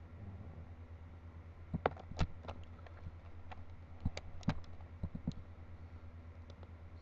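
Rubik's Cube layers being turned by hand: irregular plastic clicks and clacks, the loudest about two seconds in and again about four seconds in, over a steady low hum.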